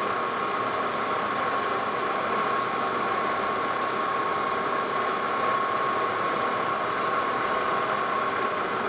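Metal lathe running steadily while the back edge of the index-plate disc is deburred and chamfered: a steady hiss with a thin, steady high whine.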